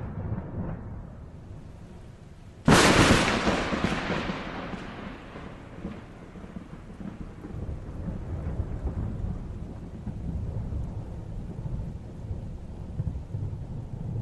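Thunder: low rumbling, then a sudden sharp crack of a close lightning strike nearly three seconds in. The crack fades over a few seconds into a low rolling rumble that swells and eases.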